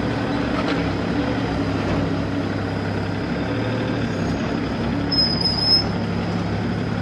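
Diesel engine of a Hitachi EX35-1 (Airman AX35) mini excavator running steadily as the machine climbs onto a truck bed. A brief high squeal comes a little past five seconds in.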